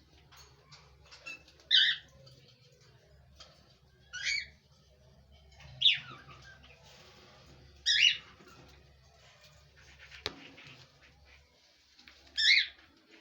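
Pet parrots calling: five short, loud squawks spread through the stretch, with softer chirps between them, and a single sharp click about ten seconds in.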